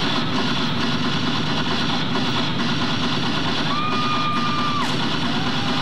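Steady crowd and room noise of a large audience between cheers, with one held high tone, like a shout or whistle, about four seconds in that lasts about a second.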